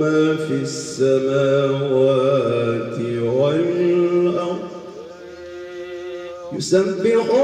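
A man's melodic Quran recitation (tilawah): one long held phrase with slow, ornamented turns in pitch that fades toward its end, then a short breath and a new phrase beginning just before the end.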